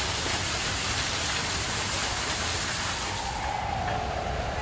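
Steady rushing noise with a low rumble inside a dark ride. About three and a half seconds in it gives way to quieter outdoor ambience with a faint wavering tone.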